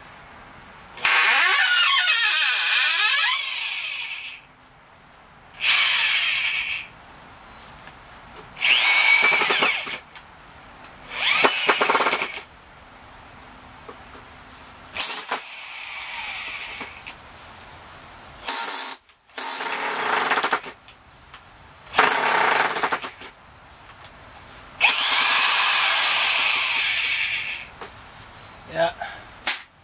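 Corded electric drill running in about ten short bursts, one to two seconds each, as it bores into tough oak boards. Its whine rises and falls in pitch within some bursts as the motor speeds up and bogs.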